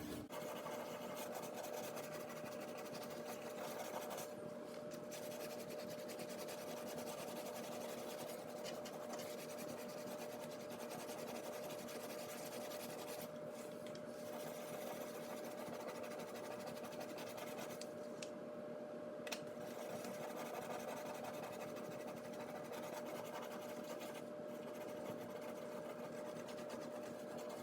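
Dishwasher tablet scrubbed back and forth over greasy oven door glass: a steady wet rubbing and scratching, over a steady low hum.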